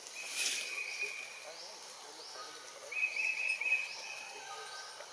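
Forest ambience with high-pitched wild calls: a steady whistled call held for about a second near the start, then a warbling call about three seconds in, with thin short chirps over a faint hiss.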